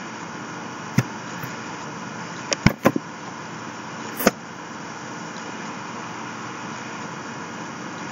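A few sharp computer mouse and keyboard clicks: one about a second in, a quick cluster of three near three seconds, and one more just after four seconds, over a steady background hiss and hum.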